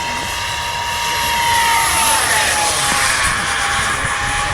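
Electric ducted-fan whine of a 3D-printed radio-controlled model Cessna A-37 Dragonfly jet flying past. It grows louder, then drops in pitch about two seconds in as the model goes by.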